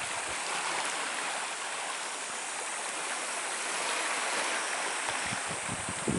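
Steady hiss of sea water washing and lapping around shoreline rocks.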